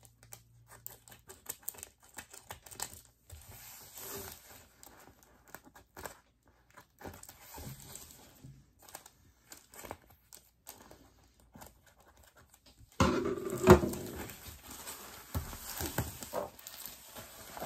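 Tape and wrapping coming off a rolled diamond painting canvas: faint, scattered crinkling and tearing, then a sudden spell of louder rustling and crinkling about three-quarters of the way through as the canvas is handled and unrolled.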